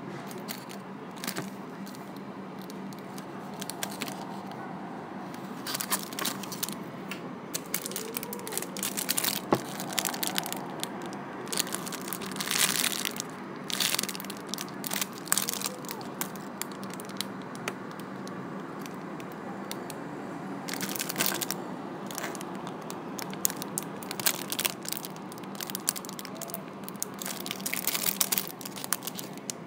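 Clear plastic packaging bags crinkling and rustling in irregular bursts as small toy charms are handled and unwrapped.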